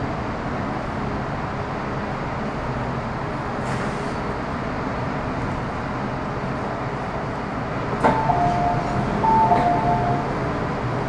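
Metro Cammell M-Train EMU heard from inside the car while running in a tunnel: a steady rumble of wheels and running gear. About eight seconds in there is a click, then a brief squeal on two steady pitches for about two seconds before the rumble carries on.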